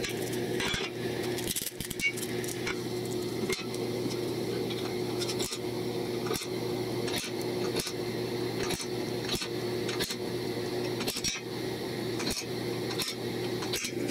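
Automatic center punch snapping against a steel plate, one sharp click about every second, punching hole centres through a paper template. A steady low hum runs underneath.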